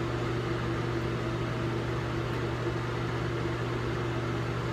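Electric ventilation fan running steadily: an even low hum over a soft airy hiss.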